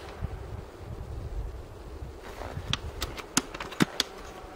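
Wind buffeting the microphone as a low uneven rumble, then about six sharp clicks in quick succession over a second and a half near the end, fitting the bolt of a Silverback SRS A2 airsoft sniper rifle being cycled for the next shot.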